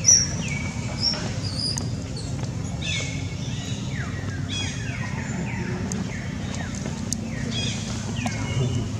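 Baby long-tailed macaque crying: a run of high, thin squeals, each falling sharply in pitch and then held briefly, repeated over and over, over a steady low rumble.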